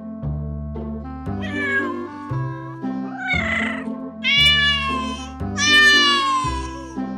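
Domestic cat meowing several times over background music. The meows come one after another and get louder, the last two long and drawn out, the final one falling slightly in pitch.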